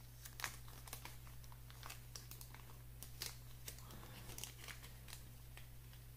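Faint crinkling of a small clear plastic seed bag worked between the fingers: a run of light, irregular crackles and ticks.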